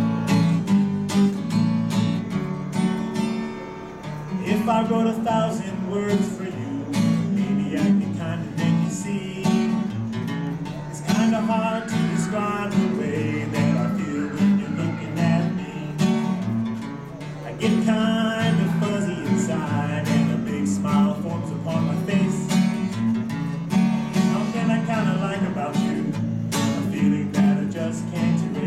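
A man singing to his own strummed acoustic guitar, with steady strumming under the vocal lines and short guitar-only stretches between them.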